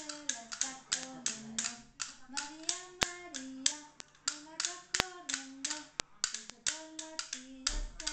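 Hand clapping in a steady rhythm, about four claps a second, along with a voice singing a tune.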